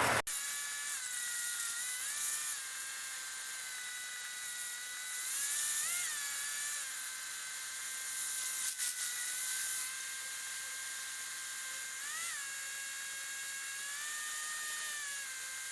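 A high-pitched electrical whine of several steady tones that swoop up and back briefly three times, with no engine rumble underneath.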